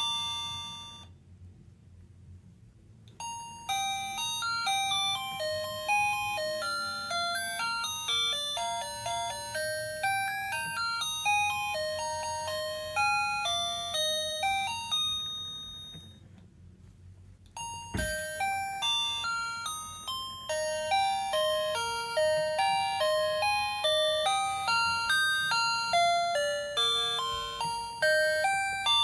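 Gemmy animated Christmas figure's sound chip playing a tinny electronic melody of chime-like notes through its small speaker. The tune stops twice for about two seconds, and a sharp click comes just before the second restart. A faint low hum from the knitting-arm motor mechanism runs underneath.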